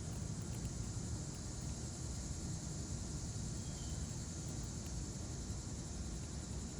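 Steady outdoor background noise: a low rumble with an even high hiss, and one faint short chirp about four seconds in.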